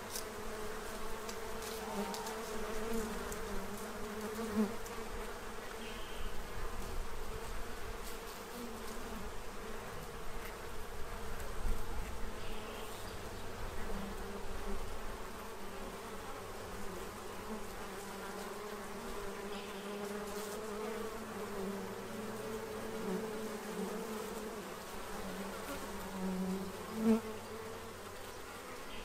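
Many honey bees buzzing as they fly around and feed at a feeder tray. The hum is steady, wavering in pitch as individual bees pass close, with one louder passing buzz near the end.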